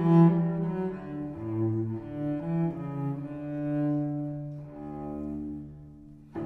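Background music: a slow melody of long held notes that softens toward the end.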